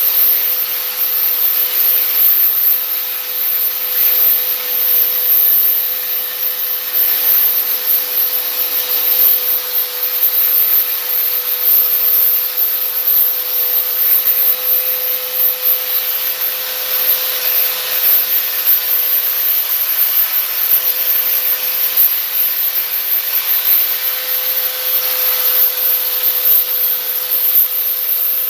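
Power sander running against fiberglass body filler on a door panel: steady scraping over a constant motor hum, knocking the filler down to a smooth transition.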